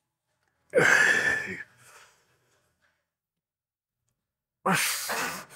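A man's forceful, voiced exhales of exertion while lifting weights: two heavy breaths, each about a second long and falling in pitch, one about a second in and one near the end.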